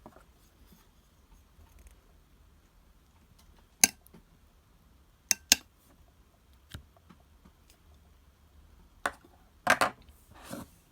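Clear slime being handled, giving sharp, wet clicks and pops: one about four seconds in, a quick pair a second and a half later, and a louder cluster of pops near the end.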